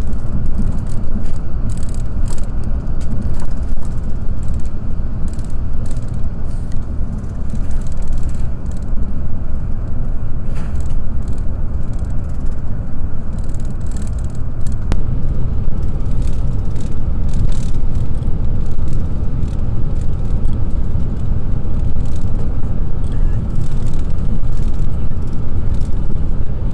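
Renfe Alvia train running at over 200 km/h, heard from inside the passenger car: a loud, steady low rumble and rush with frequent light clicks and rattles.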